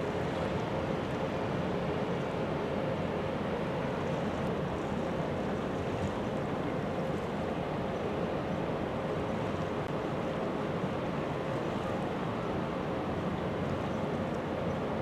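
Steady drone of a container ship's machinery across the water, with a faint constant hum and no sudden sounds.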